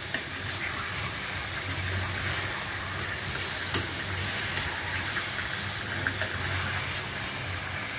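Masala-marinated chicken pieces sizzling steadily in hot oil in a frying pan while a wooden spoon turns them over, with three light knocks of the spoon against the pan.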